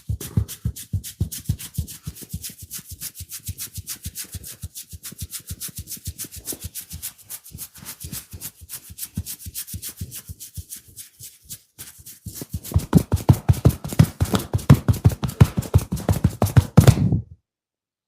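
Rapid, rhythmic percussive massage strokes tapping on the body, about six or seven a second. They grow heavier and louder about two-thirds of the way through, then stop abruptly.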